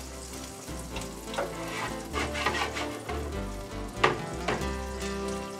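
Butter sizzling in a skillet while a utensil stirs and scrapes the pan, with a few sharper knocks; the loudest comes about four seconds in. A low hum cuts in and out underneath.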